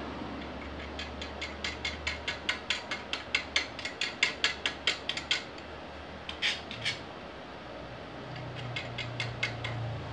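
A run of rapid mechanical clicks, about four or five a second for several seconds, then a short rasp, then more clicks near the end over a low hum that comes in about eight seconds in.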